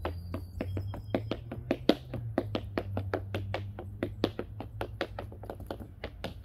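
Tap shoes' metal taps striking a thin board in a fast, rhythmic run of sharp clicks, several a second: tap dancing.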